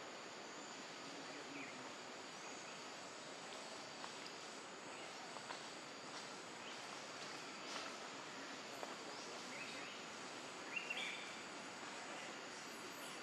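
Outdoor ambience: a steady hiss with a faint, high, steady insect drone, scattered faint ticks, and a few short chirps, the loudest a quick pair near the end.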